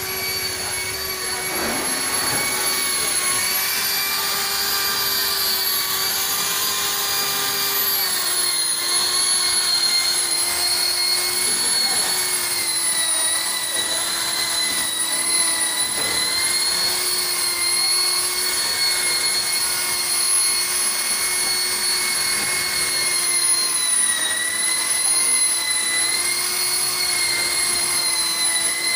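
Electric rotary car polisher running steadily, its motor giving a high whine whose pitch dips slightly now and then while the pad works over the paint.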